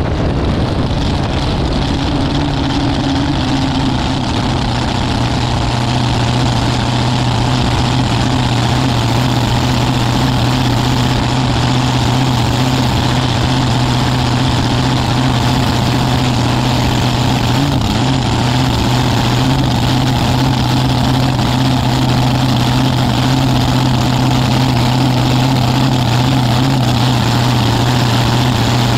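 Nitro-burning V8 of a drag racing car, with open zoomie headers, idling steadily at one even low pitch as the car rolls slowly after its run.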